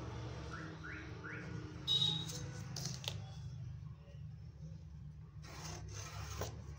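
Handling sounds of a steel ruler and measuring tape on fabric: a click about three seconds in, then a few short scraping strokes of tailor's chalk drawn along the ruler near the end, over a steady low hum.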